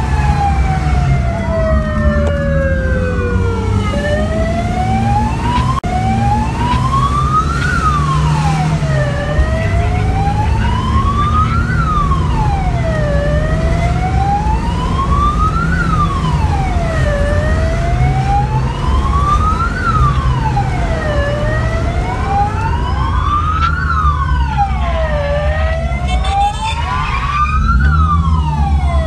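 Fire-brigade vehicle sirens, heard from inside a moving vehicle's cabin. One siren winds slowly down over the first few seconds, then wails up and down about once every four seconds, while other sirens at different pitches overlap it. The vehicle's engine and road rumble run low underneath.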